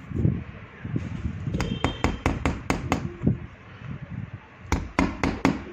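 Two quick runs of sharp knocks or taps, about nine strokes in the first and five in the second, a couple of seconds apart.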